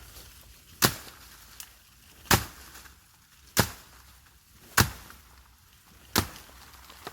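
Machete chopping into a plant's stem: five hard, evenly paced strokes, about one every second and a half.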